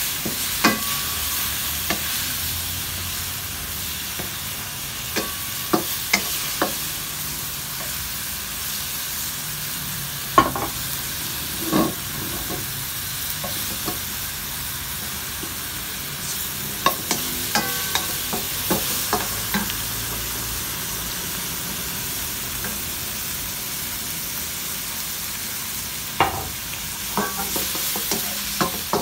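Shrimp and chopped garlic sizzling steadily in oil in a nonstick wok, stirred with a wooden spatula that knocks and scrapes against the pan in irregular clusters every few seconds.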